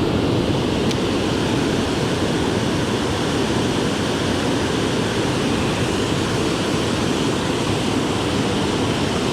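Steady rush of river water pouring over a dam.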